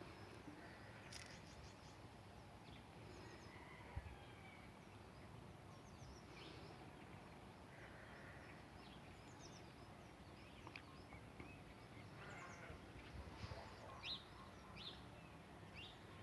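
Near silence: quiet outdoor ambience with faint, scattered bird calls. There are several short chirps that drop in pitch near the end and a single soft thump about four seconds in.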